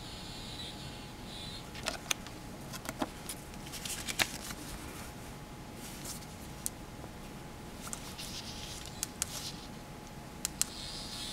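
Handling noise: scattered sharp clicks and taps of metal alligator clips and a paper card being moved and re-clipped onto a copper-tape spiral coil, over a faint steady hiss and hum.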